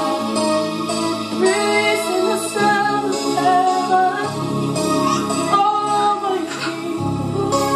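Women singing spontaneous worship over sustained keyboard chords. The chords change every second or two.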